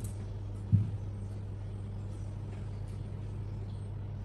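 Steady low room hum, with a single short low thump about three-quarters of a second in.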